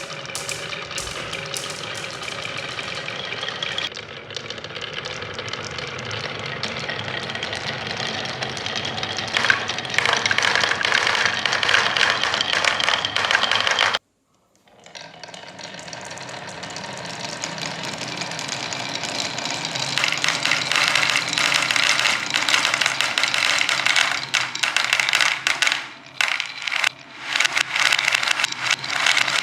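Many balls rolling and clattering down a wooden marble run, a dense continuous rattle that builds in loudness. It cuts out suddenly for under a second about 14 seconds in, then starts again and swells back up.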